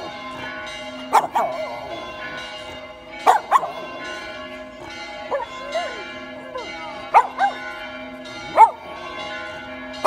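Church bells ringing, loud strikes landing in quick pairs about every two seconds over a steady ringing hum, while a dog howls along with them in wavering, rising and falling howls.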